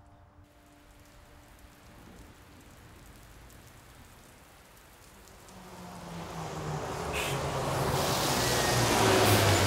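A city bus approaching, its engine rumble and road noise building over the second half. The engine note steps down in pitch as the bus slows to a stop.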